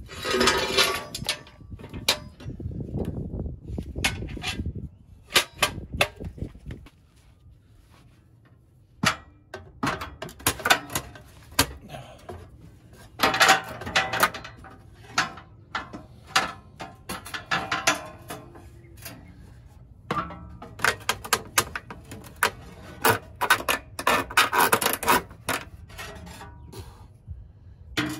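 Irregular metal clanks, scrapes and knocks as a folding steel double-step RV entry stair is worked into its mounting bracket under a camper, with a quieter pause about seven seconds in.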